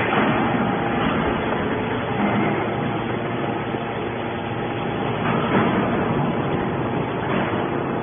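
Hydraulic metal baler running: the steady drone of its motor and hydraulic pump as the ram pushes a compressed bale of aluminium scrap out of the press chamber.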